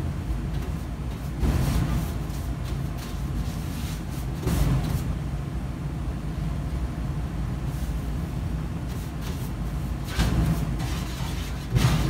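Paintbrush working latex paint onto a plywood box and dipping into a paint can: a few short brushing scrapes, about four in all, over a steady low hum.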